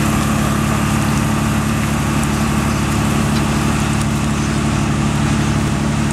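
Passenger launch's engine running steadily at a constant pitch while the boat manoeuvres close alongside the quay.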